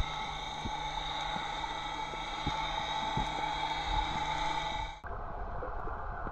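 Underwater sound heard through a camera housing: a steady motor hum with several constant tones, carried through the water, with scattered sharp clicks. About five seconds in it cuts abruptly to a duller underwater hiss with crackling clicks.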